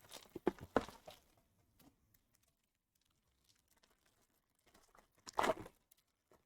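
Trading card packaging being opened by hand: a few light clicks and rustles in the first second, then one short tearing noise about five and a half seconds in.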